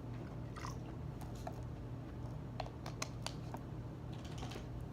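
Glue and water being stirred together in a can for slime: scattered wet, sticky clicks and squishes, bunched together about halfway through, over a steady low hum.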